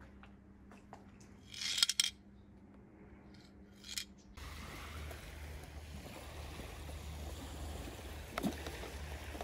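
Two short scratchy noises, then steady low wind rumble on the microphone; near the end a plastic water-bottle cap cracks as it is twisted open.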